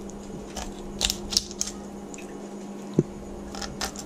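Knife blade cutting along a ladyfish's backbone, clicking and crackling through its many small bones: scattered sharp clicks, with one duller knock about three seconds in.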